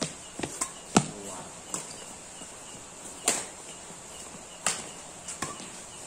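Badminton rackets striking a shuttlecock in a doubles rally: sharp hits about every one to two seconds, the loudest about a second in, with lighter taps between.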